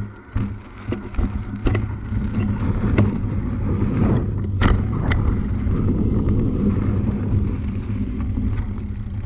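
Steady low rumble of a vehicle in motion, with scattered sharp knocks and rattles.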